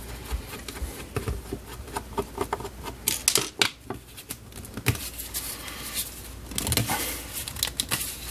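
Hands handling and working at the plastic case of a Zotek ZT203 pen-type multimeter to get its battery cover open: scattered clicks, scrapes and rubbing of skin on plastic, with busier clusters about three seconds in, near five seconds and around seven seconds.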